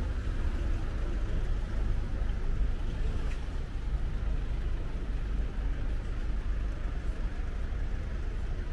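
Steady low rumble of outdoor city ambience, with no single distinct event standing out.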